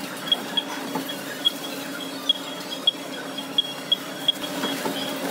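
Supermarket checkout barcode scanner beeping as a cashier scans items one by one: about a dozen short, high beeps in quick, uneven succession.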